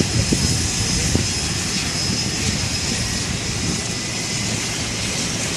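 Airplane engine running steadily: an even drone with a faint high whine above it.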